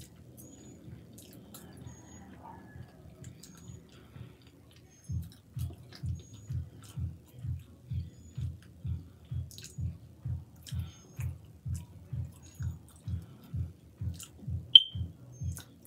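Close-up chewing of cheesy chili fries. From about five seconds in, soft jaw thumps come at a steady rhythm of about two a second. A single sharp click sounds near the end.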